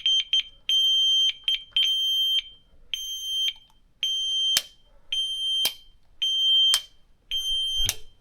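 Building alarm beeping: a shrill high-pitched electronic beep repeating about once a second, the first few beeps chopped short. In the second half a sharp click comes at the end of each beep.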